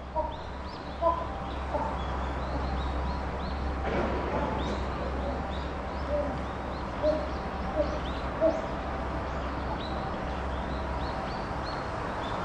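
Small birds chirping many times over, with a few short, louder calls in a lower voice coming in brief runs, over a steady low hum.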